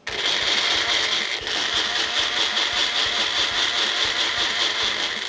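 Electric kitchen blender running, its motor and blade whirring steadily as it blends a watery jaljeera drink with mint, jaggery and tamarind water. It starts abruptly and stops after about five seconds.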